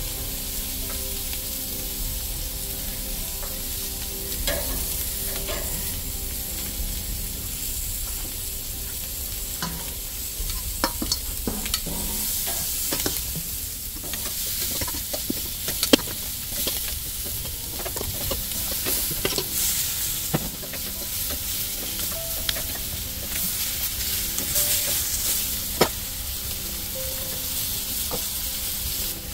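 Whole pomfret, salmon pieces and zucchini slices sizzling on a hot gas grill grate, a steady hiss. Metal tongs click sharply against the grate a few times, loudest about halfway through, as slices are laid down.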